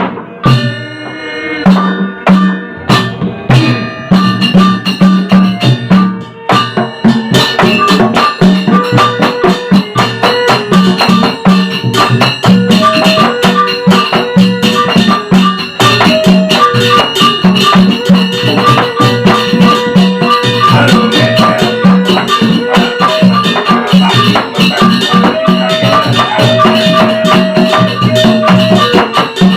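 Sasak wayang gamelan ensemble playing a gending: drum strokes under fast, busy small-cymbal clashing and a held melodic line. The playing is sparser at first and fills out to full density about seven seconds in.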